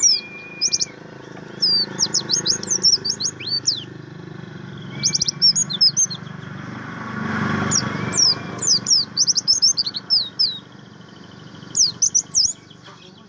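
Pleci buxtomi white-eye singing: several bursts of rapid, high, sweeping chirps, with a short steady whistled note now and then.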